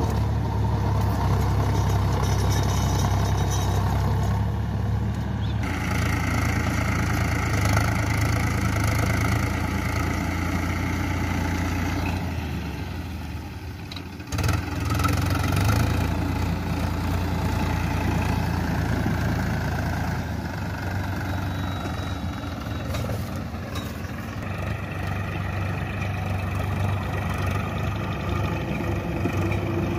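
Powertrac Euro 50 tractor's three-cylinder diesel engine running steadily under load while it pulls a rotavator through the soil. The sound dips and then jumps back sharply about halfway through.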